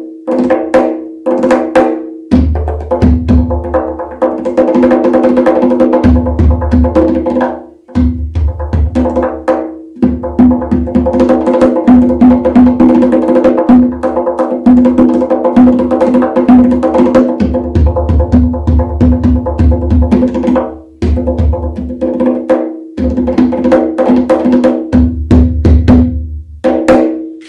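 Tonbak, a Persian goblet drum with a wooden body and natural skin head, played with the hands in fast rhythmic patterns: deep bass strokes mixed with rapid, sharp finger strokes and rolls over a ringing drum tone. The playing breaks off briefly several times and stops near the end.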